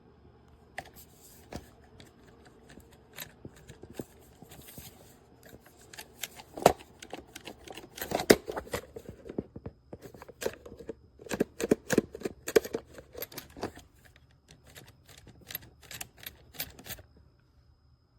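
Master Lock portable combination lock box being handled: an irregular run of clicks and clacks from its dials, latch and lid, busiest in the middle and stopping near the end.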